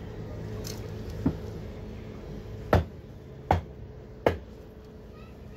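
Large knife chopping down through fish onto a wooden log chopping block: a light knock about a second in, then three sharp strikes less than a second apart.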